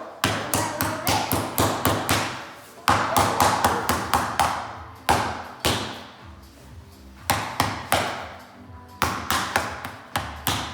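Hammer blows on vinyl floor planks, in quick runs of several sharp strikes, about four a second, with short pauses between the runs.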